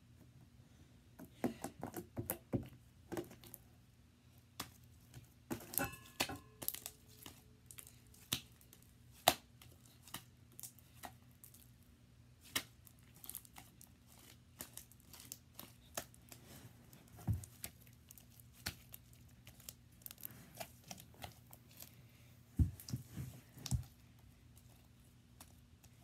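Hands stretching and squishing sticky slime: irregular small pops, clicks and crackles, with a few louder snaps.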